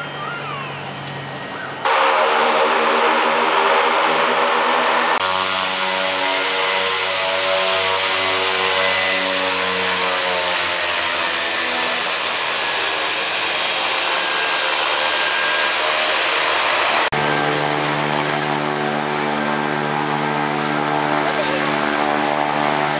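Quest Kodiak's single turboprop engine running as the plane taxis: a steady propeller drone under a high turbine whine that slowly falls in pitch. The sound changes abruptly three times as the shots are cut together.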